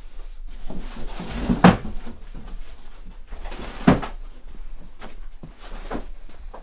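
Handling noises while a heavy floor-standing loudspeaker is moved into place: rustling and light knocks, with two louder thumps, one about a second and a half in and one about four seconds in.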